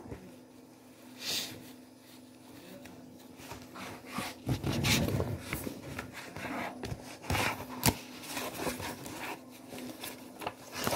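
Pages of a picture book being turned and the book handled close to the microphone: irregular rustling and scraping, with a sharp tap about eight seconds in.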